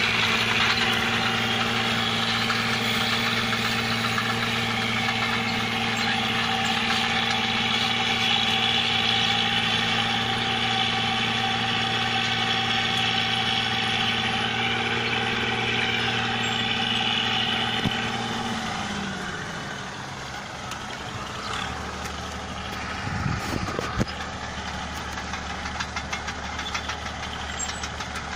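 Rice combine harvester running steadily with a loud engine and machinery hiss. About two-thirds of the way through, the engine note drops in pitch and the sound gets quieter as the revs come down.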